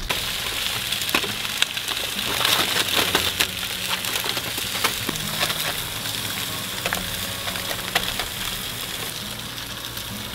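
Food sizzling on a propane gas grill, a steady hiss with frequent small pops and crackles.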